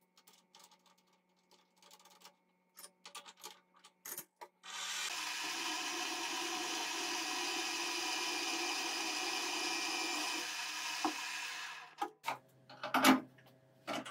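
Bench milling-drilling machine running for about seven seconds with a collet-held bit cutting into a steel bar clamped in the vise, a steady whine-and-hiss. Light clicks of handling come before it, and a sharp metal knock follows just after it stops.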